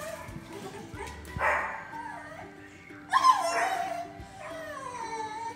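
Dog whining and yipping: a sharp falling cry about three seconds in and a long falling whine near the end, over background music.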